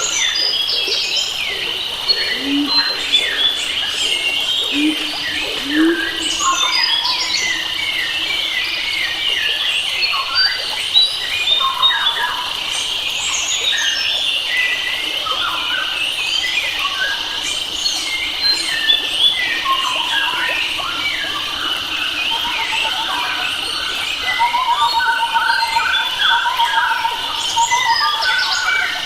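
Several wild forest birds chirping and whistling over a steady, high-pitched insect drone, with a fast repeated trill from one bird near the end.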